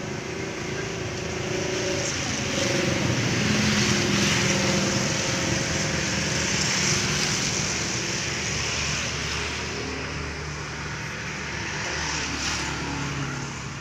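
A motor vehicle passing by; its engine and tyre noise swells over the first few seconds, is loudest in the middle, and fades toward the end.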